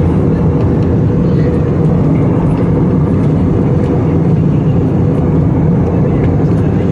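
Steady low drone of an airliner cabin in flight: engine and airflow noise with a faint steady hum, unchanging throughout.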